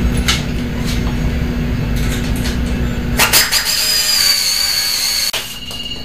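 A steady hum with a few clicks, then a power tool runs for about two seconds and cuts off abruptly.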